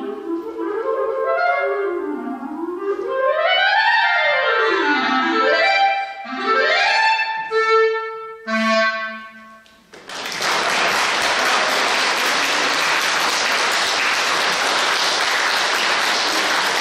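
Solo clarinet playing the closing bars of a sonata: fast runs sweeping up and down in pitch, ending on a short low held note. About ten seconds in, audience applause starts and continues steadily.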